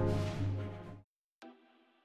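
Background music that fades and cuts off about a second in. It is followed by a faint ticking beat, one short tick with a brief ring about every three-quarters of a second.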